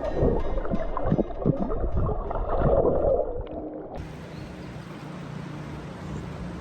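River water splashing and churning, dull and muffled, in irregular loud surges. It cuts off abruptly about four seconds in, giving way to a quieter steady low hum.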